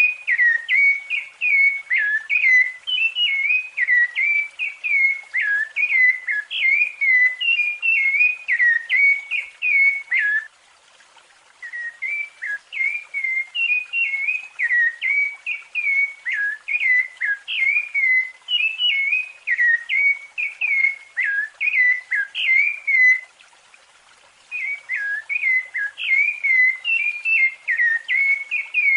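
Rufous-bellied thrush (sabiá-laranjeira) singing its fluted song: quick notes that bend up and down in pitch, in long runs broken by two short pauses, one about ten seconds in and one about twenty-three seconds in.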